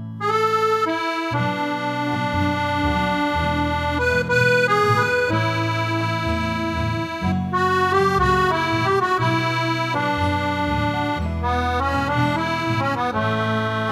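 Instrumental introduction of a Catalan havanera song: an accordion plays a melody over held chords and bass notes, with no singing yet.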